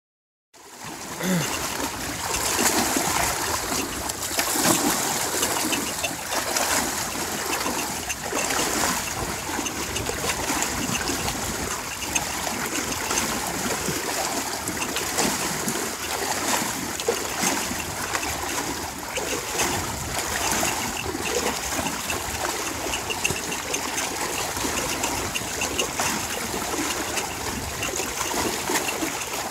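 A pair of oxen pulling a wooden cart through shallow floodwater: continuous sloshing and splashing of water around the hooves and wheels, with irregular louder splashes.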